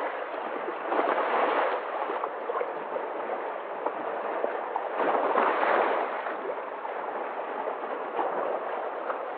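Sea waves washing in, a steady rush of water that swells twice, about a second in and again around five seconds in.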